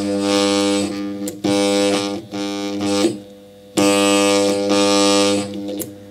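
Burnt armature of an 850 W angle grinder, fed mains AC through a 500 W bulb and turned slowly by hand, buzzing loudly as each commutator segment passes under the brushes. The buzz breaks off several times, once for over half a second near the middle and again near the end, with clicks as the segments change. The buzz dying on some segments is the sign of burnt windings with an interturn short.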